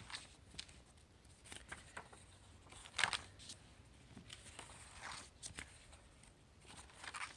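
Pages of a spiral-bound book being turned: soft, scattered paper rustles and flaps, the clearest one about three seconds in.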